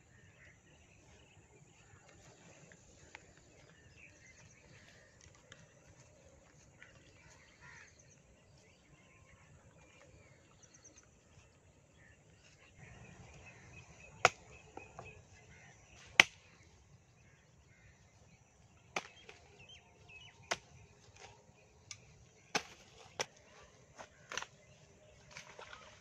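Birds chirping faintly in the first half, then a string of sharp knocks or clicks, about seven loud ones at irregular intervals of one to two seconds, in the second half.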